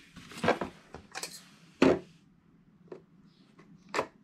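Hard plastic drill-bit case being handled, giving a handful of sharp knocks and clicks; the loudest comes a little before halfway.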